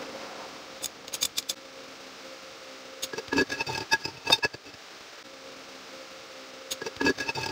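Ratchet clicks and metallic clinks of a wrench working the stabilizer-link nut on a steel control-arm bracket. They come in three short bouts, about a second in, around the middle and near the end, over a faint steady hum.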